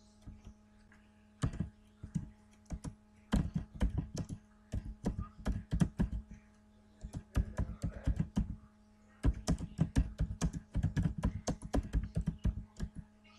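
Computer keyboard being typed on in quick runs of key clicks with short pauses between them, over a faint steady hum.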